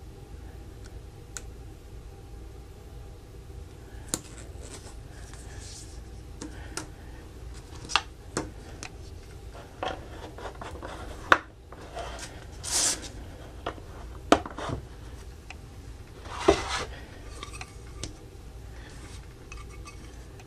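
Plastic Playmobil parts being handled and fitted together: scattered clicks, rubbing and short scrapes, with a few sharp snaps.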